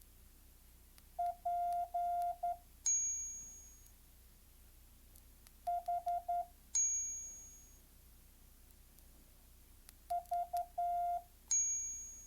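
Morse code trainer app on a phone sounding three Morse characters as steady mid-pitched beeps, short and long, each character followed by a bright, fading ding.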